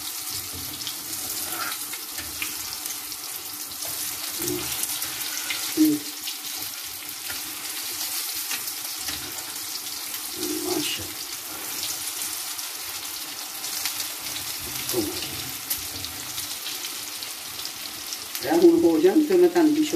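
Chicken shami kababs shallow-frying in hot oil: a steady sizzling hiss with fine crackles, with a few short scrapes as a metal slotted spatula turns them and a louder sound near the end.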